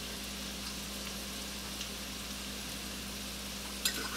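Diced carrots and onions sizzling gently in bacon grease in a stainless steel pot over low heat: a soft, steady frying hiss, with a couple of light clicks near the end.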